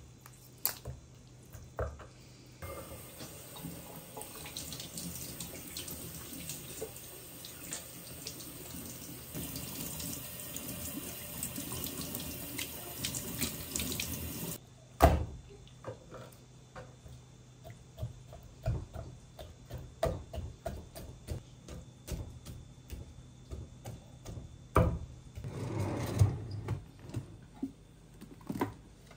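Kitchen tap running steadily into a stainless-steel sink as a raw whole chicken is rinsed under the stream, starting a few seconds in and cut off sharply about halfway. A loud knock follows, then scattered knocks and clicks of handling, and a short scraping rumble near the end.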